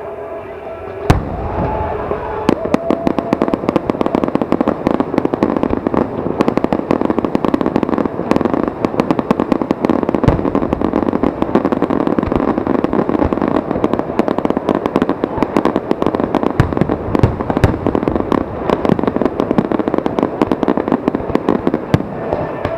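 Aerial fireworks display: a sharp bang about a second in, then a dense, continuous crackle of many small bursts, with frequent louder booms among them.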